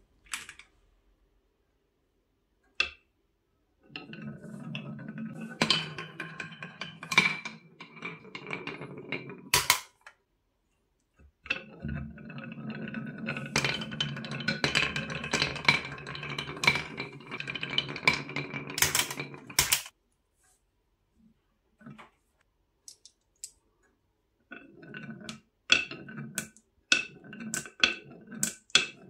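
Marbles rolling down a carved wooden wave-track slope: two long, steady rolling rumbles with a ringing tone from the wood, each lasting several seconds. Near the end come a run of sharp clicks as the marbles knock into each other and pile up against a wooden block stopper.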